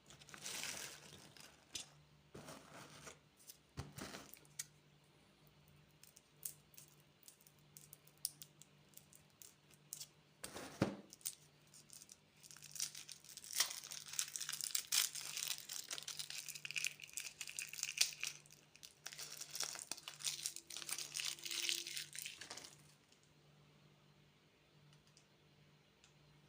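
Candy wrappers being torn open and crinkled by hand: irregular crackling and rustling with sharp clicks, busiest in the middle and stopping near the end.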